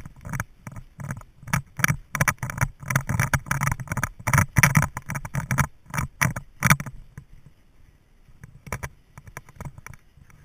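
Irregular knocking and rattling picked up by a car-mounted camera as the vehicle jolts over a rough, rutted dirt track. The knocks come thick and fast for the first seven seconds or so, then thin out to a few isolated ones.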